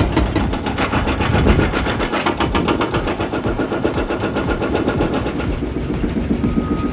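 Excavator-mounted hydraulic breaker hammering rapidly and evenly over a running diesel engine, with a machine's reversing beep starting near the end.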